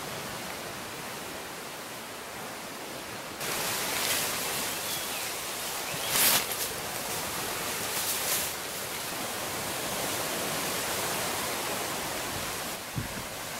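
Steady outdoor hiss of wind and water, which steps louder about three seconds in. Short louder rustles come about six seconds in and again around eight.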